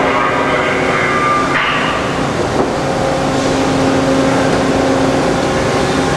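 Mazak Powermaster 2500 CNC lathe running with a steady machine hum while its tool turret indexes to a new tool, with a sharp knock about a second and a half in.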